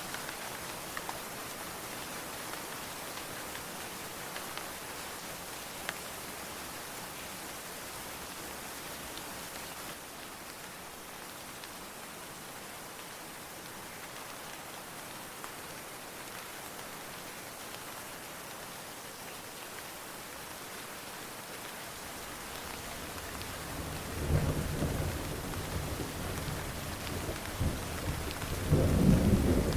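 Steady heavy rain falling, with a thunderclap rolling in about three-quarters of the way through: a low rumble that builds into loud crackling peals, loudest just before the end.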